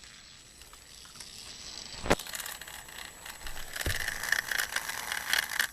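Battery-powered Thomas toy train running on its track: a small motor whine that grows louder over the last few seconds, over rapid clicking, with a sharp click about two seconds in and a dull knock about a second later.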